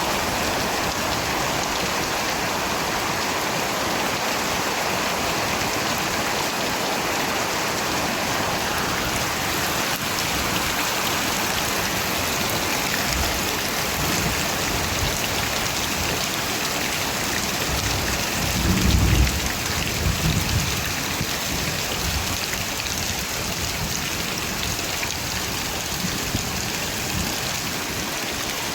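Steady rain falling, with a low rumble of thunder about two-thirds of the way through.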